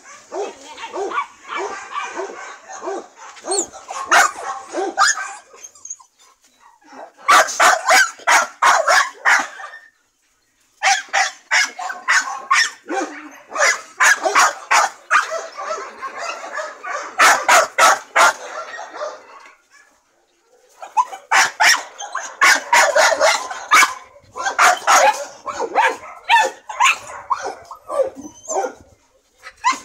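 A dog barking and yipping in rapid runs of several seconds each, with brief pauses between the runs.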